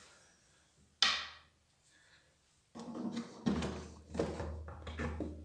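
Kärcher HD 5/15 C pressure washer's plastic front cover being prised loose with a flat screwdriver and lifted off. There is a sharp plastic snap about a second in, then a run of knocks and rattles from about the third second as the cover comes away.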